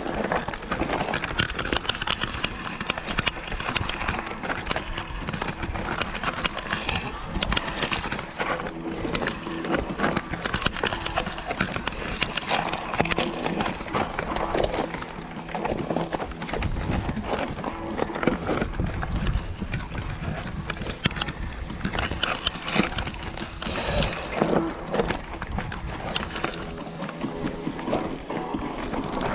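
Electric mountain bike rattling and clattering as it is ridden over a rocky track, with a dense run of irregular clicks and knocks from the frame, chain and tyres striking stones.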